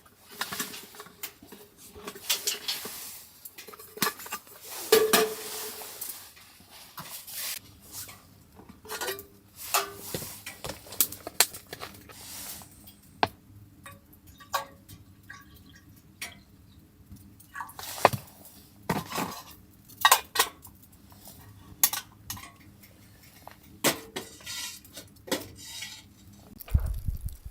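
Cookware and metal utensils clinking and knocking against each other, in irregular sharp clinks with some scraping between them.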